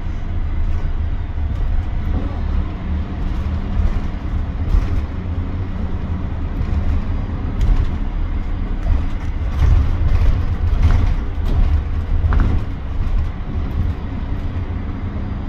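Wright StreetLite single-deck diesel bus running at low speed, heard from inside the cabin: a steady low engine and road rumble with occasional knocks and rattles from the body and fittings.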